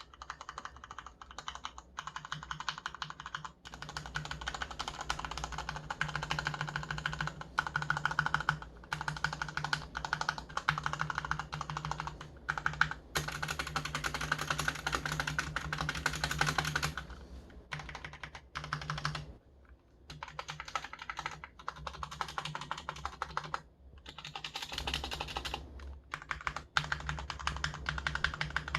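Typing on a Cherry MX Board 1.0 mechanical keyboard with Cherry MX Red linear switches: rapid keystrokes in runs of several seconds, broken by brief pauses.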